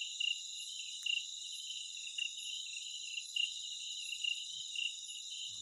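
Steady, high-pitched chorus of night insects, one call pulsing about three times a second over a continuous shrill drone.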